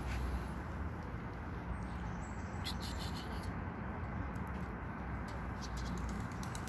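Steady outdoor background noise with scattered faint clicks, a cluster about halfway through and a few more near the end.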